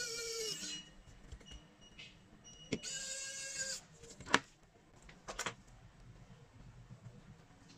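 A small electric motor whirring in short bursts of under a second, with a few sharp clicks between them.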